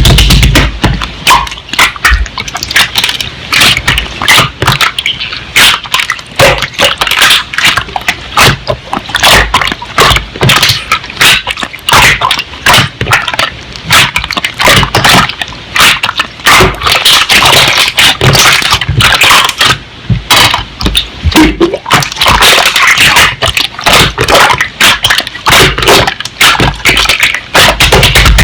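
Slime being squished and pressed by hand, a dense, irregular run of sticky clicks and crackling pops.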